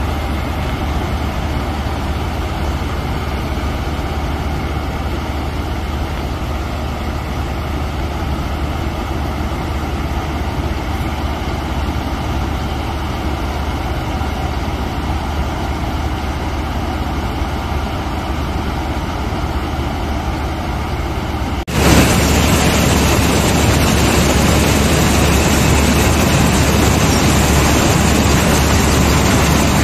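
Hind 999 combine harvester running steadily while its auger unloads grain into a tractor trolley, with a steady low engine hum under dense machine noise. About two-thirds of the way through, the sound cuts to a louder, brighter machine noise heard up close on the combine's operator platform.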